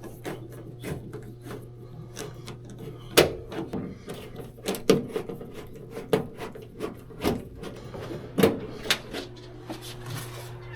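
Irregular knocks and clunks of tools and gear being handled, about one a second, over a steady low hum.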